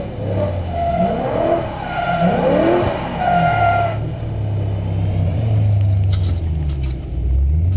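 BMW M3 E92's V8 engine running hard while the car drifts sideways on wet tarmac, with wavering tyre squeal over the first half. From about halfway a steady low engine note takes over and swells near the end.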